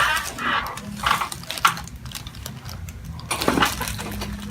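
A few short pops and cracks, the sharpest about one and a half seconds in, over a steady low hum: joints cracking during a chiropractic adjustment.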